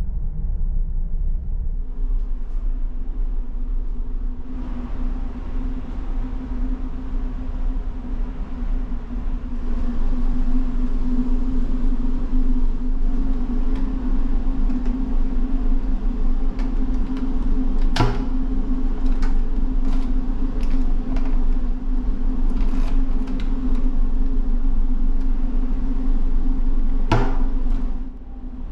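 Steady low drone of the ferry's engines and ventilation heard inside the ship. Over it come sharp clicks of a coin locker's key lock and metal door, two loud ones about two-thirds of the way through and near the end.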